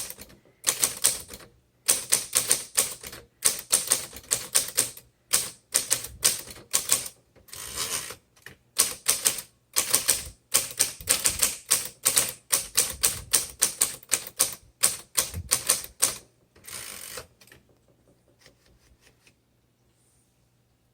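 Typing on a 1956 Royal Quiet De Luxe manual typewriter: quick, uneven runs of key strikes. After about sixteen seconds the typing stops, and a few faint clicks trail off.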